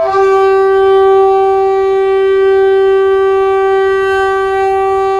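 One loud, steady horn-like blast held at a single pitch, the sound of the channel's logo intro.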